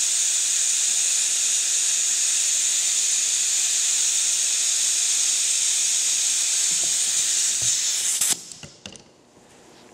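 A steady, loud hiss that cuts off suddenly about eight seconds in, followed by a few faint small clicks.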